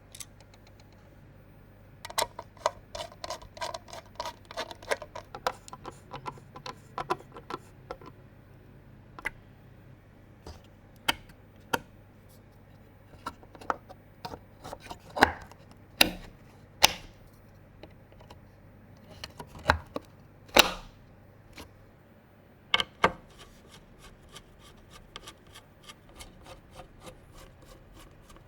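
Computer parts being handled during a PC build: runs of small rapid clicks and ticks, with a few louder hard knocks about halfway through. A faint steady low hum runs underneath.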